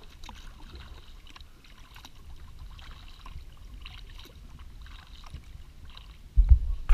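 Kayak paddle strokes: faint splashes and drips of water at an easy, irregular pace over a low rumble. Near the end a much louder low rumble comes in suddenly.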